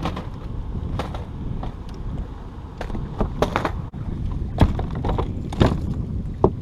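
Wind buffeting the microphone in a steady low rumble, with a series of sharp knocks and clunks on a bass boat's deck as gear and a storage compartment lid are handled and the angler moves about.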